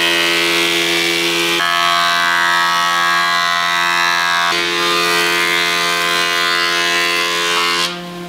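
Electric woodworking power tool running with a steady, loud whine over a hiss of cutting noise. The pitch of the whine shifts abruptly twice, and the sound drops away near the end.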